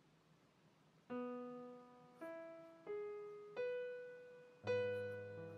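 Background piano music: after about a second of near silence, five slow single notes are struck one after another, each ringing and fading away.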